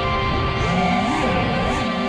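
Background music with steady held tones and notes that glide up and down in pitch.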